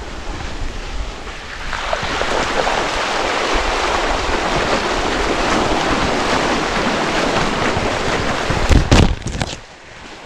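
Mountain bike ploughing through a shallow stream crossing: a steady rush of water churned and sprayed by the wheels that starts about two seconds in. Near the end come a couple of heavy thumps, then the rush stops as the bike climbs out onto the bank.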